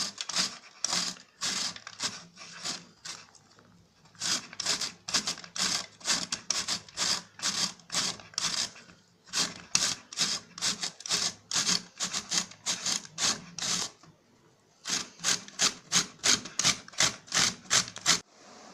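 Peeled raw green mango being grated on the coarsest side of a stainless steel box grater: quick rasping strokes, about two or three a second, in runs broken by short pauses.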